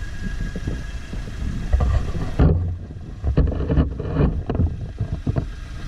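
Wind buffeting the microphone over a low, uneven rumble, with a few short knocks in the second half.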